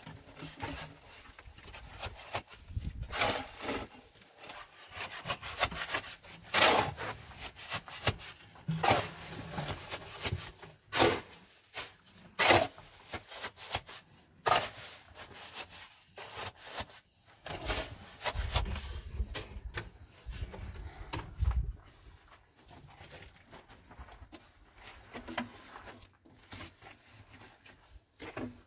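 Irregular scraping and rubbing strokes on a rough surface, uneven in loudness. There is a stretch of low, dull knocking a little past the middle.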